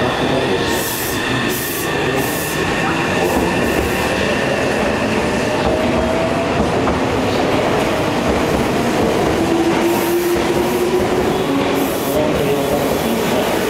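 Meitetsu 2200 series electric train pulling out and accelerating past, its traction motors whining in tones that climb in steps, over steady wheel and rail noise as the cars go by.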